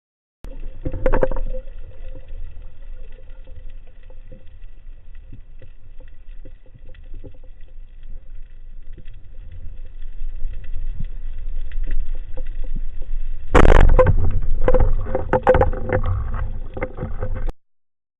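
Low rumbling water noise with a faint steady hum, growing louder; about 13 and a half seconds in a sudden loud rush of noise starts and goes on in choppy bursts until the sound cuts off.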